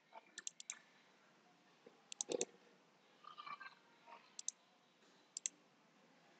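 Computer mouse button clicking in small quick runs: a few rapid clicks near the start, four more about two seconds in, then two quick pairs later on.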